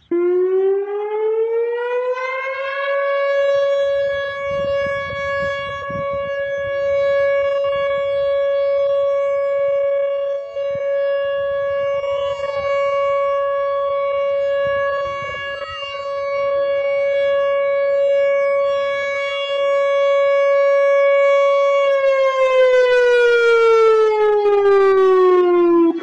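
Whelen WPS-4004 electronic outdoor warning siren sounding a steady tone. It starts abruptly, glides up in pitch over the first few seconds, holds one pitch for most of the run, then glides back down near the end and stops. Its loudness swells and dips slowly as the horn array turns.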